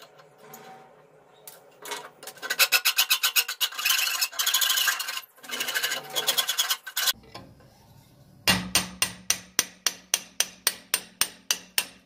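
A flat metal file rasping in quick strokes across the metal pin in the end of an old wooden cleaver handle. About eight seconds in, this gives way to a steady run of sharp hammer taps on a metal punch set in the handle end, about five a second.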